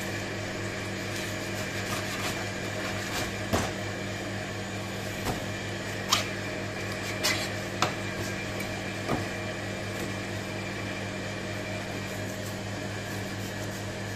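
A steady low machine hum, with a few sharp knocks and taps scattered through it as the fish and knife are worked on a plastic cutting board.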